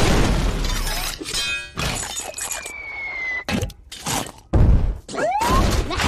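Cartoon sound effects: a flamethrower blast, then a falling whistle and heavy thuds, and near the end a police car crashing down with shattering glass.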